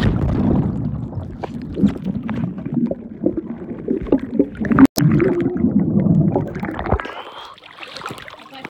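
Muffled underwater gurgling and water noise, picked up by a phone sealed in a waterproof pouch. There is a brief break about five seconds in, and it quietens after about seven seconds.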